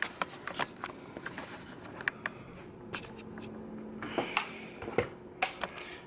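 Scattered light clicks and taps at an irregular pace, over a faint steady hum.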